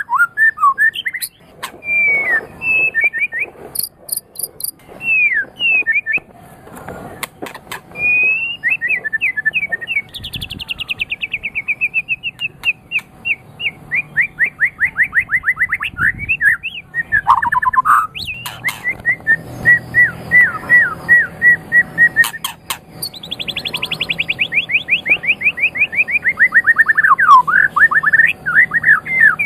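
White-rumped shama singing a loud, varied song of whistled phrases and fast trills. Twice it runs into a long rapid series of notes that falls in pitch, and in between it repeats one note many times, with a few sharp clicks.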